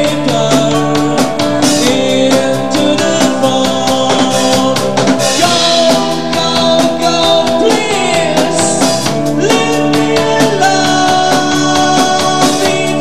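Live rock band playing a song: a steady drum beat under sustained keyboard and guitar chords, with a male voice singing.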